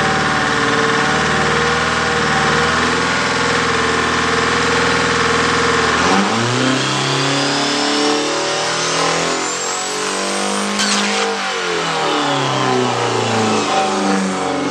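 Engine running at a steady pitch, then revving up and down from about six seconds in. A high rising whine climbs over the revs, and there is one sharp crack about eleven seconds in.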